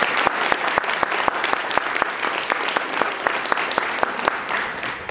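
Audience applauding: dense hand clapping that tapers off near the end.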